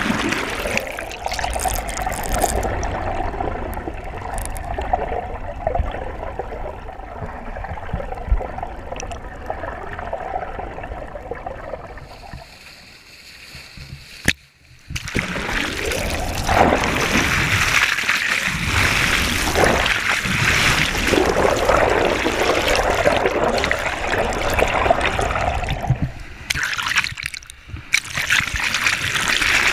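Sea water rushing and gurgling around a camera held below the surface, muffled. After a brief drop-out about halfway, the camera is at the surface and water splashes and sloshes loudly around it.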